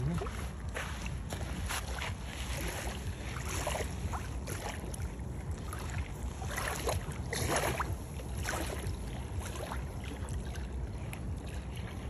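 Wind rumbling on the microphone outdoors, with scattered short rustles and scrapes from handling and moving over the sand.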